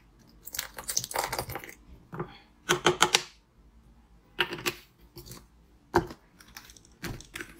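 Thick passion-fruit pulp squeezed out of a plastic bottle into a gold bathtub-shaped bowl: irregular bursts of crackling, clicking plastic and wet plops, in several short clusters.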